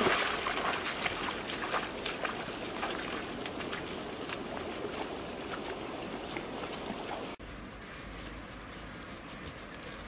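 Rustling and crackling of tall grass and reed stalks brushing as people push through the vegetation. About seven seconds in it cuts abruptly to a quieter outdoor background with a faint steady high tone.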